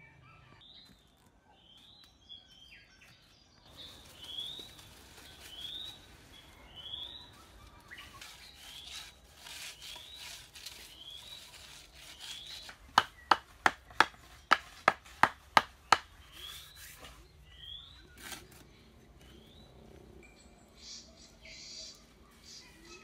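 A bird calling over and over with a short rising chirp about once a second. Midway comes a run of eight sharp knocks, about three a second, louder than anything else.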